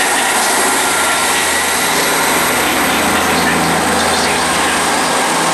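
Class 158 diesel multiple unit moving past along the platform, its underfloor diesel engines giving a loud, steady drone.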